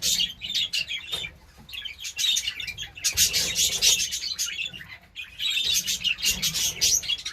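A flock of budgerigars chattering and chirping: fast, overlapping high chirps that swell and fade in waves, loudest about three seconds in and again towards the end.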